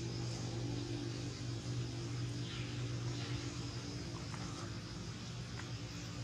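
A steady low mechanical hum, with a few faint small clicks in the second half.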